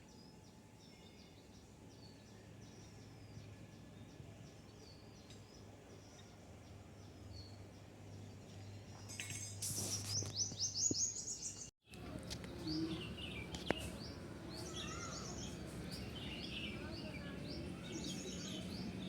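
Several birds calling and chirping, with a loud, fast run of short rising high notes about ten seconds in. After a brief dropout the chirping is busier.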